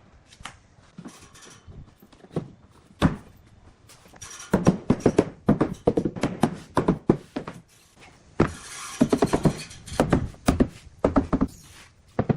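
Irregular wooden knocks and thunks of pieces being tapped and handled at the workbench, coming thicker in the second half, with a brief scraping rush about eight and a half seconds in.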